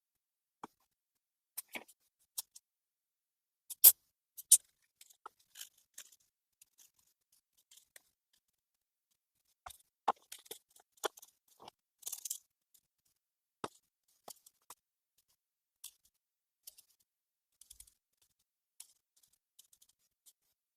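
Scattered sharp clicks and light knocks of small parts and tools being handled, with a short scraping rustle about twelve seconds in.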